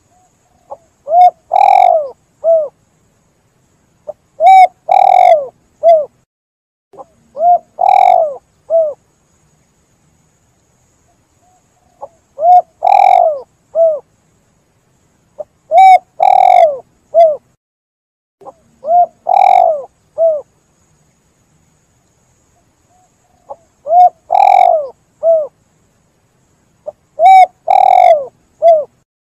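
Spotted dove (tekukur) cooing: its song phrase of a short lead-in note, a long rolling coo and a short closing coo, repeated about eight times, one phrase every three to four seconds.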